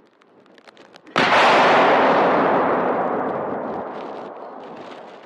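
An explosive demolition charge detonating about a second in: one sharp, very loud blast followed by a long echo that fades away over about four seconds.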